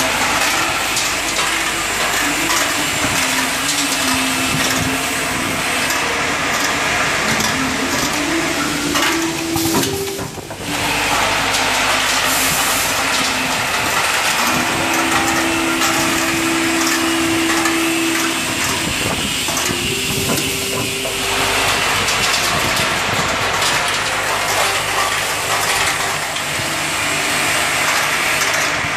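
Automatic hardware packing machine with ten vibratory feeders running: a steady, dense mechanical din with a low hum that comes and goes. The noise dips briefly about ten seconds in.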